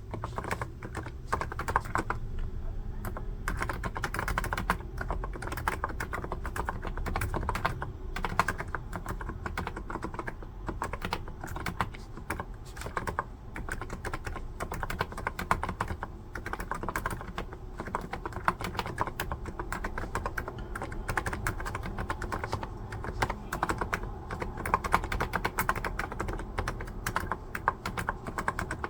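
Continuous fast typing on a NiZ electrostatic capacitive keyboard: a dense run of soft keystrokes with the hollow 'poko-poko' sound of its capacitive switches.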